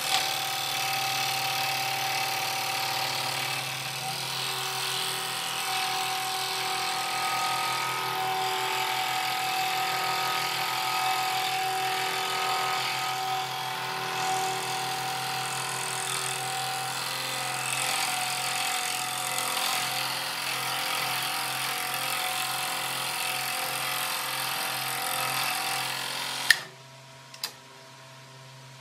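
Scroll saw running, its blade stroking rapidly up and down as it cuts a wooden board, cutting with a blade that the maker found to be dull on this first petal. Near the end the saw is switched off with a sharp click, and a smaller click follows about a second later.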